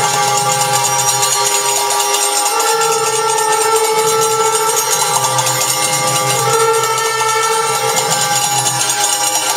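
Temple bells ringing continuously in a fast clangor during a puja, with long held notes from a wind instrument over them that change pitch every couple of seconds.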